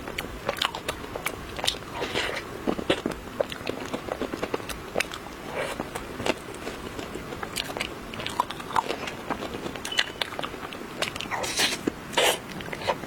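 Close-miked eating of chocolate: bites and chewing, with many irregular sharp clicks and crunchy crackles.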